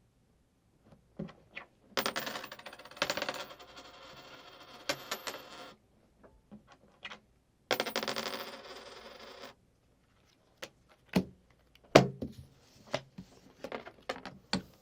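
Playing cards and coins being handled: two longer fluttering bursts, one starting about two seconds in and one near the middle, that fit cards being riffled. Sharp coin clicks and clinks are scattered around them, getting busier in the last few seconds.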